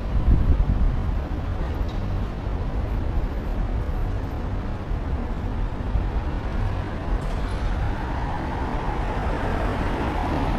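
Wind rumbling on the microphone as it moves along a city street, mixed with road traffic noise. A passing vehicle's hiss swells over the last few seconds.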